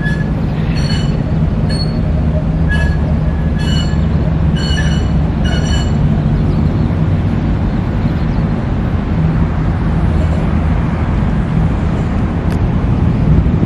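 Light rail tram running slowly over a steady low rumble. In the first half there are short, high squeals about once a second, typical of its wheels on a curve.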